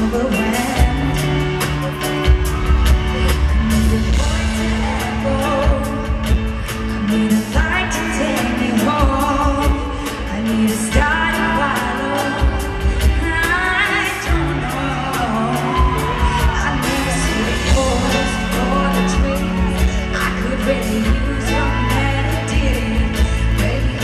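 Live amplified pop ballad: a woman singing into a microphone over a band with sustained bass and steady drum hits.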